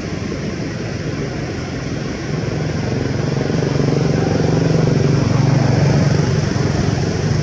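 A motor vehicle's engine passes unseen, its low hum growing louder about halfway through and easing off near the end, over a steady background hiss.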